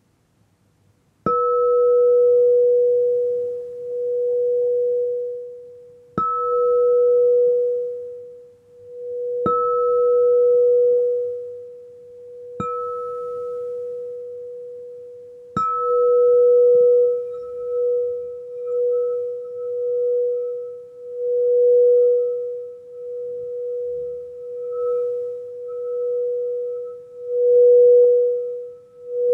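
Frosted crystal singing bowl struck with a mallet five times, each strike ringing out in a clear, steady tone with a fainter higher overtone. From a little past halfway the mallet is circled around the rim, so the tone sustains unbroken, swelling and pulsing.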